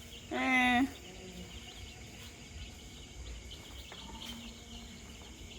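A short, steady-pitched hum about half a second long, like a person's 'mm', just after the start, over a steady background chirring of insects.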